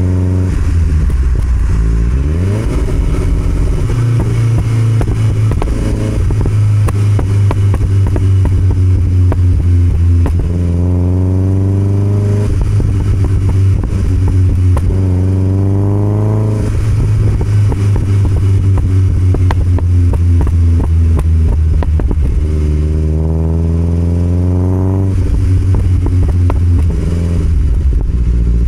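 1969 Alfa Romeo Spider 1750's twin-cam four-cylinder engine through an Alfaholics exhaust, pulling through the gears: several times the engine note climbs for a couple of seconds, then drops at the shift, between stretches of steady cruising.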